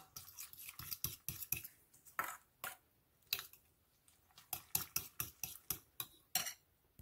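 A metal utensil stirring a runny egg mixture in a cut-glass bowl: quick, repeated clinks and scrapes against the glass, about three or four strokes a second, with a short pause about halfway through.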